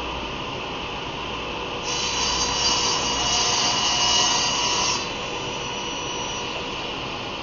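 Power saw running steadily; about two seconds in, its blade crosscuts a 3/4-inch-thick wooden handle blank for about three seconds, the sound getting louder, then the saw runs free again.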